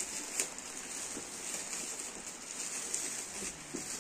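Metallic foil gift wrap crinkling and rustling in irregular crackles as hands pull it off a cardboard box.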